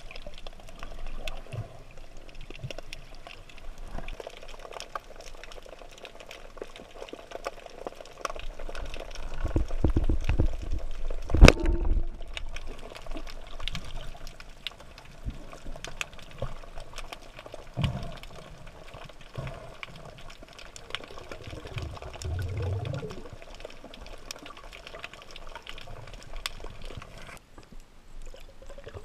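Underwater sound through an action camera's housing while diving: a steady wash of water noise with many faint crackling clicks. Low rumbles of water movement come and go, and one sharp loud crack stands out about eleven seconds in.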